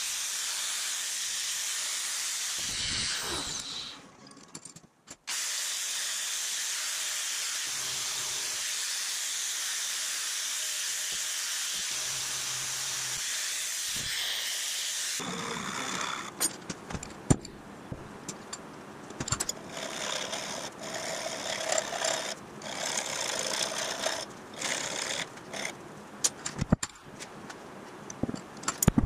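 Angle grinder grinding down a fresh weld on a steel rod bracket held in a vise: a steady, even grinding hiss, broken by a short pause about four seconds in, that stops about fifteen seconds in. After it comes irregular scraping and sharp clicks of the metal part being worked by hand.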